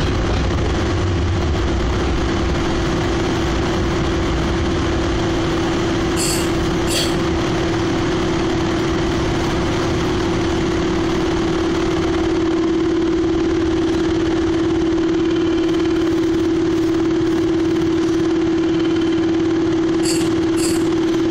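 Electric commuter train heard from inside the driver's cab: low running rumble that dies away in the first few seconds as the train slows, under a steady electrical hum from the onboard equipment. Short bursts of high ringing strikes come about six seconds in and again near the end.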